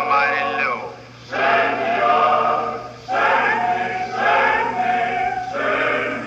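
Choir singing in sustained phrases, with short breaths about a second in and about three seconds in.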